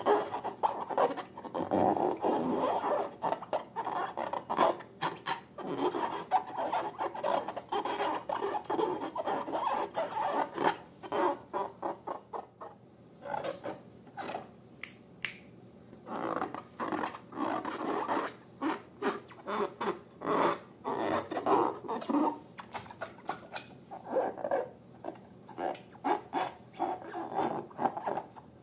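Slime and balloons being handled by hand: a dense, irregular run of rubbing, squishing and crackling, with a short quieter pause about twelve seconds in.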